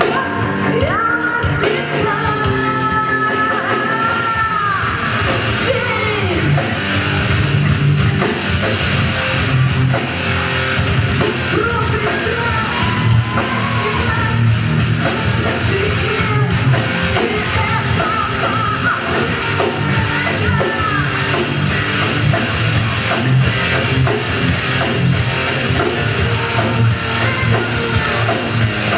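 A rock band playing loud, heavy music live, with guitar, drums and a singer holding long notes in the first few seconds.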